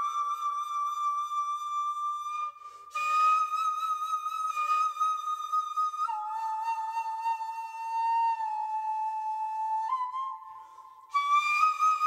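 Solo Japanese bamboo transverse flute (fue) playing slow, long-held notes that bend slightly in pitch. There is a short break for breath about two and a half seconds in and another near the end.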